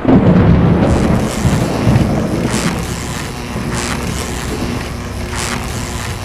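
Lightning sound effects: a deep thunder boom that hits at once and eases over about two seconds into a steady low rumble, with short crackling electric zaps three times, roughly every second and a half.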